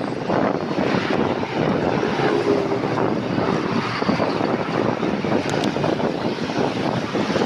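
Wind rushing over the microphone of a camera on a moving bicycle, a steady dense rush with no pauses.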